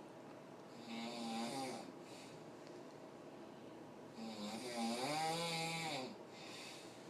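A sleeping man snoring: two snores, a short one about a second in and a longer, louder one about four seconds in, each followed by a fainter breath.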